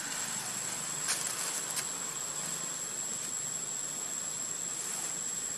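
Steady high-pitched insect drone, crickets or cicadas, over a faint hiss of forest ambience, with two short clicks about a second and nearly two seconds in.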